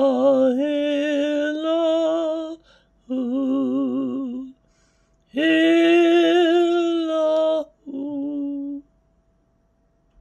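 A man's unaccompanied voice singing slow, held phrases with a wavering pitch, four phrases with short pauses between them, stopping about nine seconds in.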